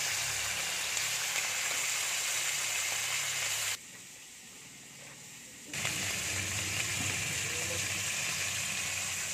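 Steady sizzling hiss from a pot of live blue swimmer crabs being heated. It drops away for about two seconds partway through, then resumes.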